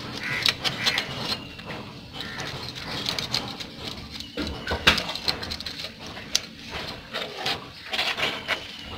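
Kitchen knife scraping scales off a whole fish, an irregular run of quick rasping clicks and scrapes, with the blade now and then knocking on the concrete.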